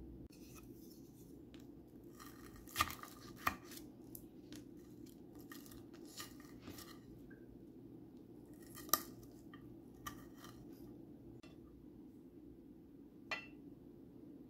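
Cutlery on a plate: a fork scraping and clinking against a ceramic dinner plate while cutting into a patty, with a few sharp clinks, the loudest about nine seconds in. A steady low hum sits underneath.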